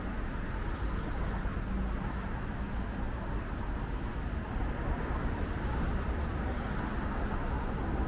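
Steady city traffic noise from a busy multi-lane road, cars passing continuously.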